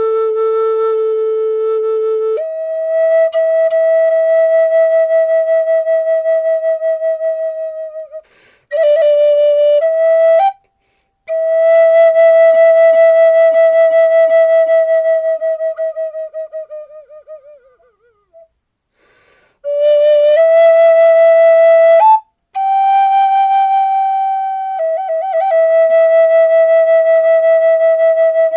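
Flute playing slow, long held notes, each lasting several seconds, stepping between a few pitches with short pauses for breath between phrases.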